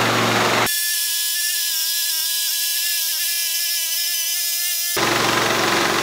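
Portable band sawmill's engine running as the band blade cuts along an ash log. Less than a second in, the sound switches abruptly to a thinner, higher, even whine with the low rumble gone. The fuller noise comes back near the end.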